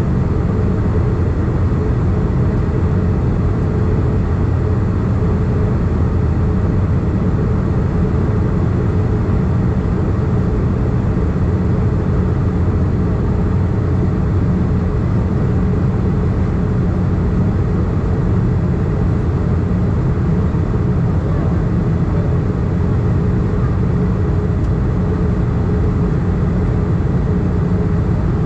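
Steady in-flight cabin noise inside an Airbus A320: a loud, even rush of airflow and engine drone with a faint steady hum running through it.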